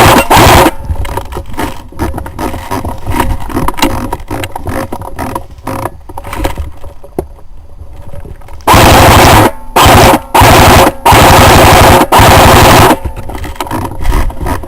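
Airsoft gun firing full-auto bursts very close to the microphone, a rapid even clatter. A burst cuts off about half a second in; then, after a quieter stretch of scattered clicks, four bursts come in quick succession from about nine to thirteen seconds in, the last one the longest at nearly two seconds.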